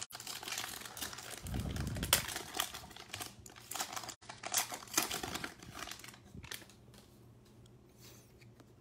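Wrapper of a 2020 Prestige football card pack crinkling and crackling as it is torn open and the stack of cards is pulled out. The crinkling dies down about two-thirds of the way in.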